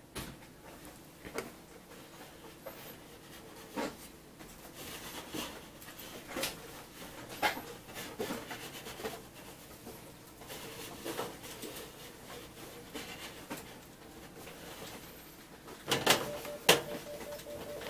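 Scattered light knocks and clicks of a hard plastic adapter unit being handled and turned around on a tabletop, with a cluster of louder knocks near the end.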